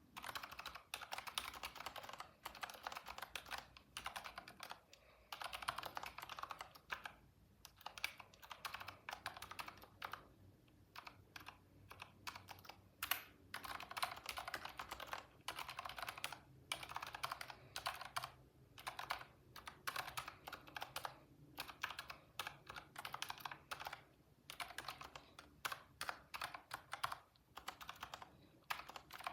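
Computer keyboard typing in bursts of rapid keystrokes with short pauses between them.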